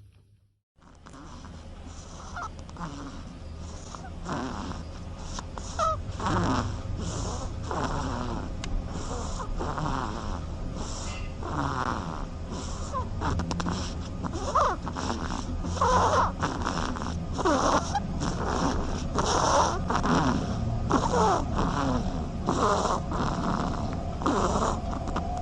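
An animal snoring in a quick run of short snores, with squeaky whistling notes that slide up and down in pitch, over a steady low hum. It starts about a second in.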